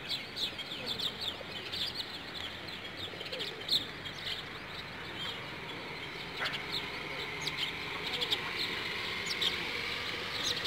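Birds chirping in many quick, short, high notes, busiest in the first few seconds, with low cooing from a feeding flock of pigeons underneath.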